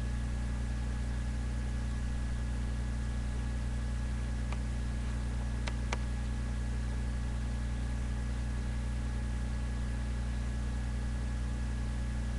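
Steady low hum with no rhythm. A few faint clicks come about four and a half and six seconds in.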